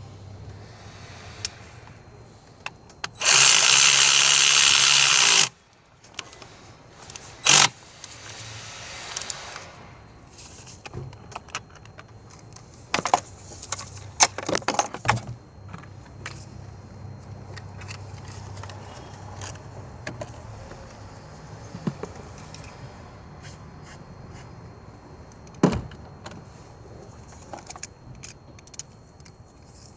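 Spark plugs being fitted into a car engine's cylinder head with hand tools: scattered metal clicks and taps. About three seconds in comes a loud burst of noise lasting about two seconds, from a power tool or a blast of air.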